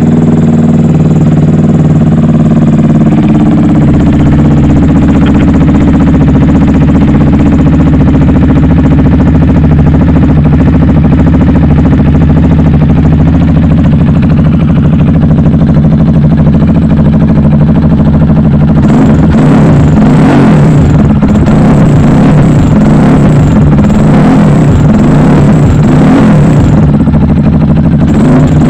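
Titan250Fi motorcycle engine running through an exhaust fitted with a turbo-whistle insert. It idles steadily, then from about 19 seconds in it is revved in repeated throttle blips, with a thin whistle over the rough exhaust note.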